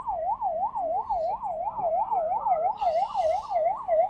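An emergency vehicle's siren in a fast yelp, its pitch sweeping up and down about four times a second.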